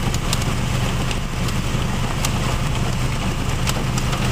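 Hail and rain pelting a vehicle's roof and windshield, heard from inside the cabin as a steady din with scattered sharp ticks, over the low hum of the engine idling.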